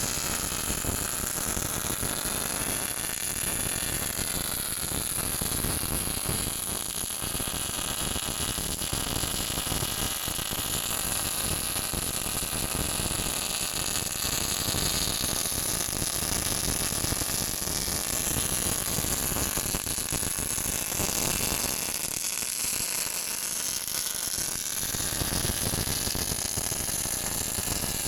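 Steady static-like hiss with a bright high band, unbroken throughout.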